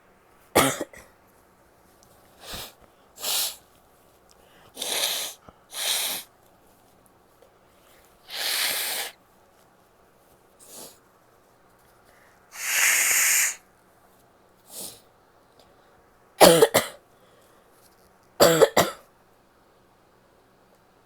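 A woman coughing: a sharp cough just after the start and two more near the end, with short sniffs or breaths between. In the middle, two longer noisy blows of her nose, the second about a second long.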